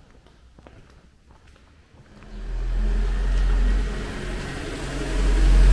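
Quiet indoor room tone with faint clicks for about two seconds. Then a car engine starts running close by, steady with a strong low rumble, easing slightly midway and growing louder again near the end.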